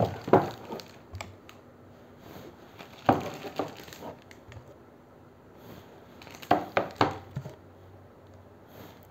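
Framed prints and their packaging being handled: three short clusters of clicks, knocks and rustling about three seconds apart, as one frame is put down and the next is taken out.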